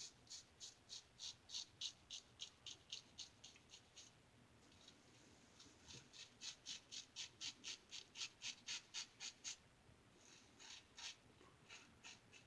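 Safety razor scraping through stubble in quick, short strokes, about four or five a second, in runs with short pauses about four and ten seconds in.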